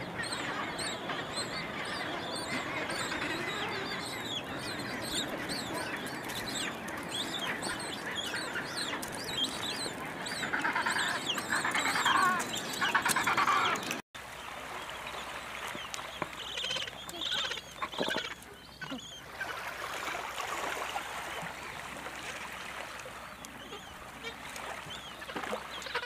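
Penguin colony calling: a dense chorus of short, high chirping calls, with louder, lower calls rising out of it about halfway through. After an abrupt break just past the middle, the calls are quieter and more scattered.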